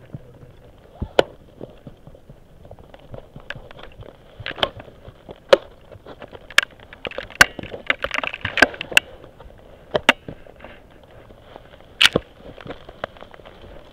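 Ice axes being swung and driven into steep hard snow: a string of sharp, irregular strikes with crunching snow, most closely spaced around the middle.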